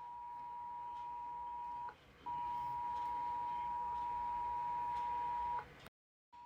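Emergency Alert System attention signal: a steady two-pitch alarm tone. It breaks off briefly about two seconds in, resumes, and stops shortly before the end.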